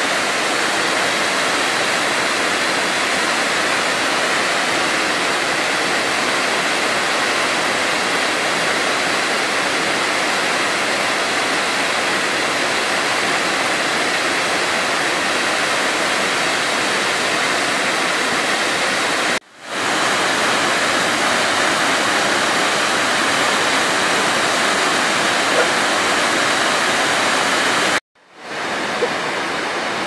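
Waterfall pouring over sandstone ledges into a pool: a steady, loud rush of falling water. It breaks off briefly twice, about two-thirds of the way through and again near the end.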